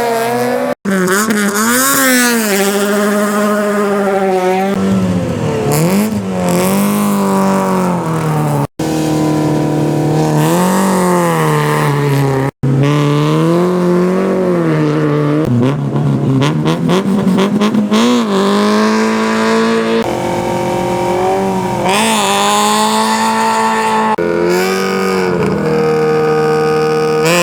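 Rally car engines revving hard at the start line and accelerating away, the pitch rising and falling through the gears, with some tyre squeal from wheelspin. It is a run of different cars, broken by three brief dropouts where the clips are cut together.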